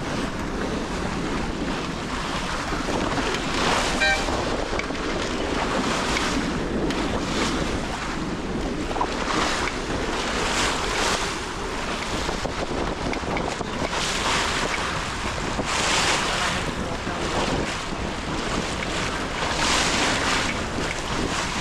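Wind buffeting the microphone over water rushing along the hull of a C&C 27 sailboat under sail, the wash swelling every few seconds.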